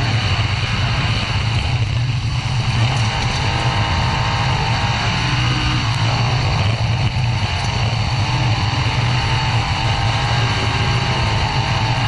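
Winged sprint car's engine running hard at high revs while racing on a dirt track, heard from on board: a loud, steady engine note with only brief slight dips.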